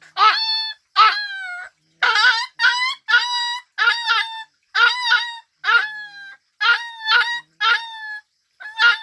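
A young dog crying and yelping over and over, each high cry falling in pitch, one or two a second: cries of pain from a tokay gecko clamped on its nose.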